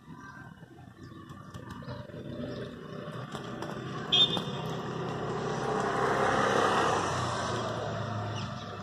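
A vehicle passing by, growing steadily louder to a peak about six to seven seconds in and then starting to fade. A brief high-pitched squeak about four seconds in.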